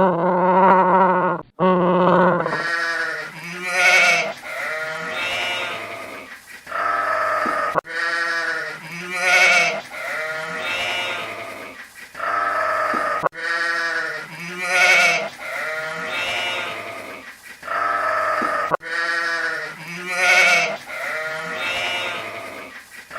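A farm animal bleating over and over: a short run of wavering calls that repeats the same way about every five and a half seconds, like one recording played on a loop.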